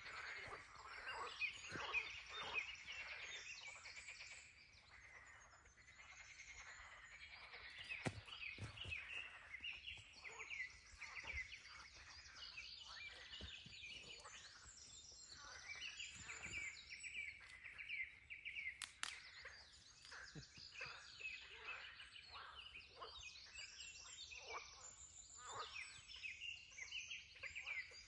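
A faint, dense chorus of many overlapping short chirping calls from small animals, with a couple of sharp clicks about eight and nineteen seconds in.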